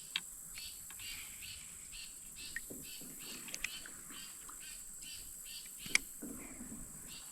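Creekside insects and birds chirping: a steady high insect drone with a run of evenly repeated chirps, about two or three a second. A few sharp clicks stand out, the loudest about six seconds in.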